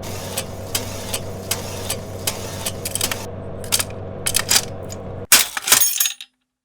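Fresh orange juice vending machine humming steadily while its mechanism clicks about two to three times a second. About five seconds in comes a short, louder clatter, and then the sound cuts off.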